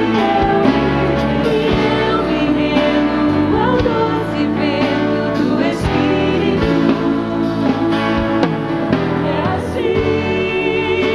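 Live Christian worship music: women singing a Portuguese worship song into microphones, with a choir-like blend of voices over band accompaniment and occasional percussive hits.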